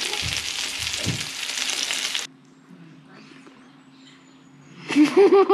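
Kahawai fillets sizzling in hot oil in a cast-iron skillet, a dense hiss that cuts off abruptly about two seconds in. Near the end a child laughs briefly.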